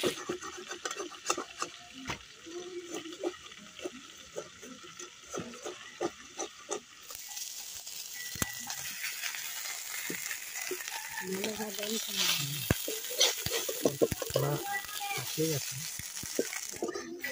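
Small fish frying in oil in an aluminium wok: a steady sizzle, with the metal spatula scraping and clicking against the pan as the fish are stirred and lifted out.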